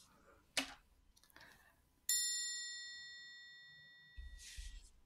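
A single bright bell-like chime, struck once about two seconds in and ringing away over about two seconds: a transition chime between sections. A short click comes shortly before it.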